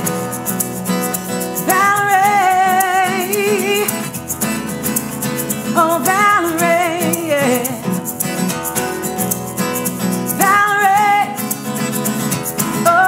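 Acoustic guitar strumming steadily under a woman's wordless sung runs with vibrato, in about four phrases.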